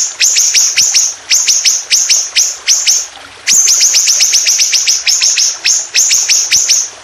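A songbird's fast, loud series of sharp notes, each sweeping down in pitch, at three to six a second, with a brief pause about three seconds in.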